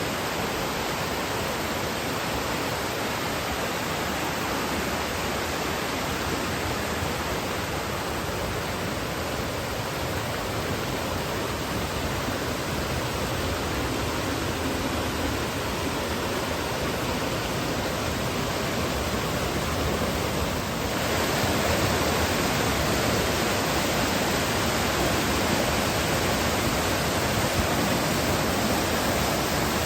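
Waterfall rushing steadily, a constant, even roar of falling water that gets louder about two-thirds of the way through.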